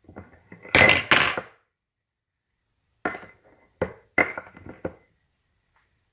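A knife knocking and clinking against a custard cup while it pokes brown-sugar filling down into a cored apple: two loud knocks about a second in, then four lighter ones a couple of seconds later.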